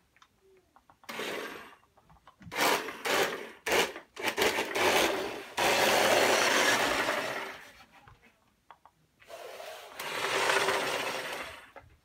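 Toy remote-control truck driving in several bursts, its small electric motor and gears running with a rough, even noise. The longest run lasts about four seconds in the middle.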